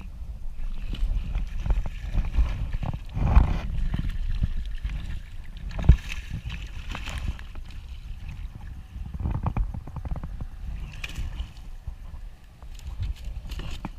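Fishing boat on the water: an uneven low rumble of wind and water, with scattered knocks on the boat. The sharpest knocks come about three and six seconds in.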